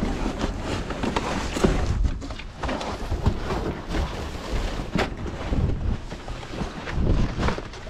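Cardboard box and metal chair parts being shifted and pulled about, with irregular knocks, clatter and scraping over a low rumble on the microphone. The box is soft and crumbling as it is handled.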